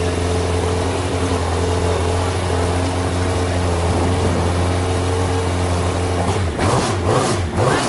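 Race car engine idling with a steady low drone. About six seconds in, it is blipped in a few quick, uneven revs.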